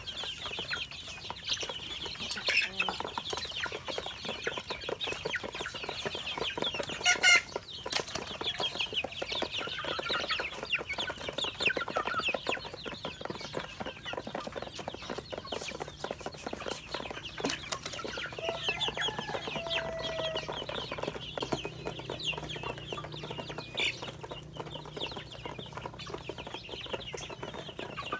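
A flock of young chickens peeping and cheeping nonstop while they peck feed from a plastic dish, with a steady patter of sharp pecking clicks. A brief louder clatter comes about seven seconds in.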